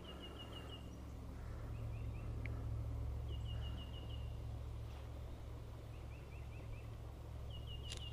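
A songbird singing: about five short runs of quick, high chirped notes, a second or two apart, over a low steady rumble.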